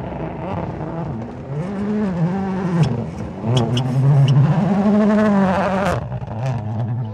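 Rally car engine revving hard, its pitch climbing and dropping repeatedly through gear changes, loudest in the second half as the car slides past on gravel. Several sharp cracks come around the middle and near the end.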